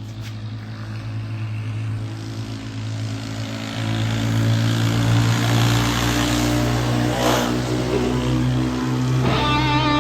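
Opening of a rock outro track: a steady low drone with an engine-like rush, swelling in loudness. Electric guitar comes in near the end.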